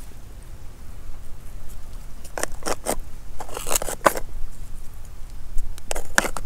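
Live scallops' shells clacking and knocking as they are picked up and handled on rock: sharp clicks in short runs from about two seconds in, loudest near four seconds and again near six seconds, over a low background rumble.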